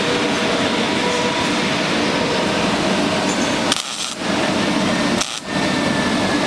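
Semi-automatic (MIG) welding arc crackling steadily. It cuts off abruptly twice, briefly, before starting again.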